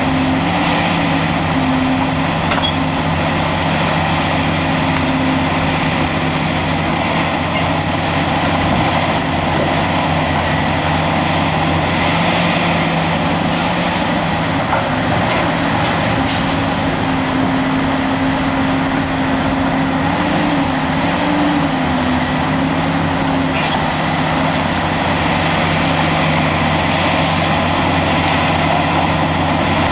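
Caterpillar 375 LME hydraulic excavator working steadily, its diesel engine and hydraulics running under load as it digs and swings, with a Cat 769D off-highway dump truck idling alongside. Two short sharp knocks cut through, one a little past halfway and one near the end as rock is dumped into the truck's body.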